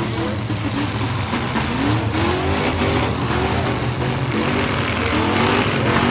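Demolition derby car engines running hard and revving up and down over a steady low rumble, several at once.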